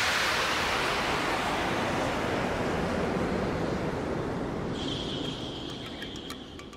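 Steady rush of fast-flowing water, a mountain river or waterfall, slowly fading. A thin, steady high tone comes in about five seconds in.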